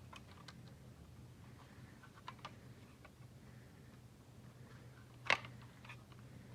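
Light plastic clicks and taps from handling a Bandai Bujin Sword Raise Buckle roleplay toy, with one sharp, louder click a little after five seconds in.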